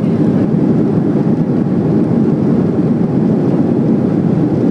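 Steady loud roar inside the cabin of a Boeing 737-300 rolling out on the runway after touchdown with its ground spoilers up: the CFM56-3 engines and rushing air, heard from a seat over the wing.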